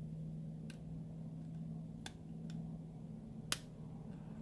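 Metal tweezers clicking and tapping against small iPhone X parts while a gasket is worked off: four or five short sharp ticks, the loudest about three and a half seconds in, over a low steady hum.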